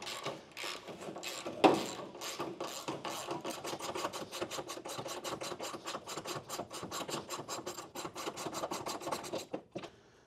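Hand ratchet wrench clicking fast and evenly, about seven clicks a second, as a bolt is backed out by hand. A sharper knock about a second and a half in.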